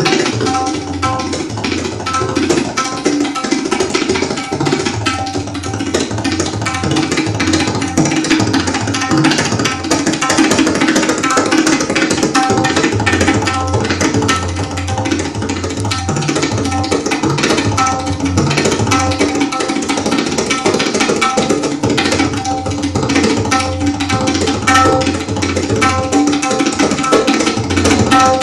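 A tabla pair played live in fast, continuous strokes. The right-hand drum rings at a steady pitch, under deeper bass strokes from the left-hand drum.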